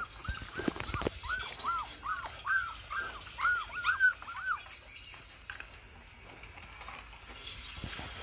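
Puppy whimpering in a rapid string of short, high whines, about two or three a second, that stops about four and a half seconds in.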